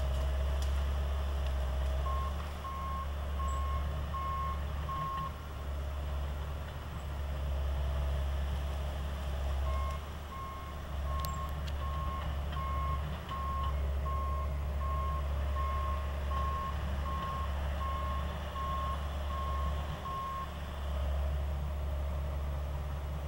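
John Deere 450 crawler bulldozer's diesel engine running with a steady low rumble while its backup alarm beeps about twice a second. The bulldozer is reversing: the alarm sounds for a few seconds, stops, then beeps again for about ten seconds.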